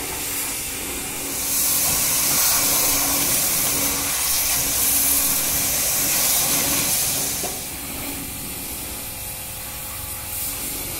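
High-pressure washer jet spraying water onto a scooter, a steady hiss with a low hum underneath. It grows louder about a second and a half in and drops back to a softer hiss about seven and a half seconds in.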